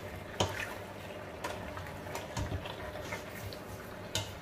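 Chicken pieces stirred in a stainless steel pot with a ladle: wet squishing of the meat in its juices, with a few sharp clicks of the ladle against the pot, the clearest about half a second in and just before the end.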